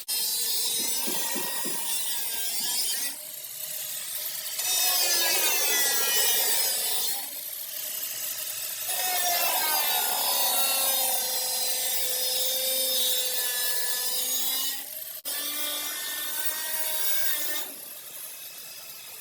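Power tool grinding on car body sheet metal, its whine wavering up and down with the pressure, in several long passes broken by abrupt stops.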